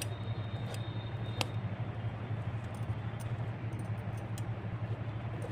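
Wood fire burning in a clay chulha, with a few faint sharp crackles over a steady low hum.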